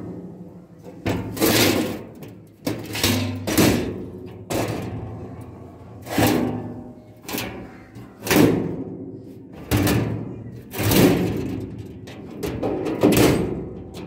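Galvanized steel sheet engine hatch door in a pickup's metal load platform being banged shut and rattled. About a dozen irregular metallic clangs, roughly one a second, each ringing briefly.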